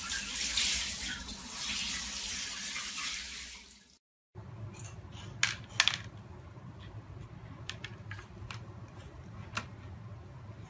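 Handheld shower head spraying water, fading out about four seconds in. After a brief silence, light irregular clicks and taps.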